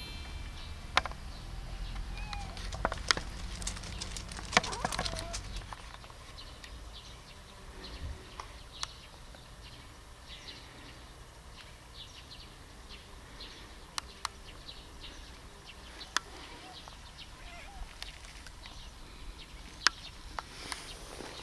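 Quiet outdoor ambience: a few faint, short bird calls over a low rumble, with scattered sharp clicks and ticks throughout.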